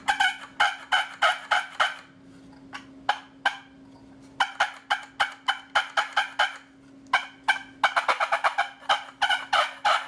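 Homemade 8-inch barn-oak push-button turkey call worked in quick runs of short, sharp clucks and purrs imitating turkeys, a fighting purr. The notes pause for about two seconds early on, then resume and come faster near the end.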